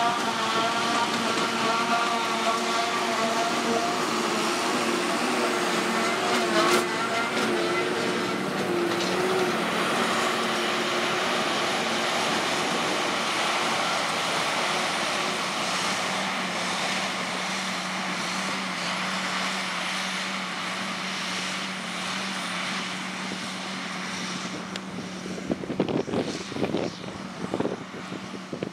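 John Deere 7450 self-propelled forage harvester running at work, chopping grass and blowing it up the spout into a trailer, with the towing tractor's engine alongside: a steady mechanical whine over a deep hum. Wind buffets the microphone near the end.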